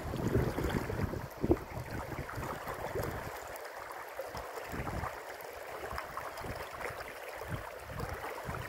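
Shallow river water rippling and running over a stony bed, with wind buffeting the microphone in low gusts, heavier in the first few seconds.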